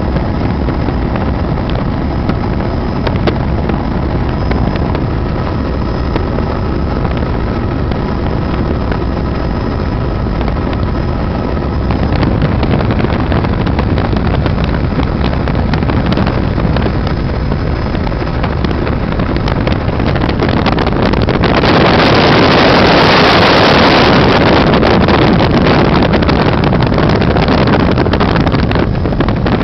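Helicopter engine and rotor noise heard from on board, a loud steady drone with faint high whining tones. About two-thirds through, a louder wind-like rush joins it for several seconds.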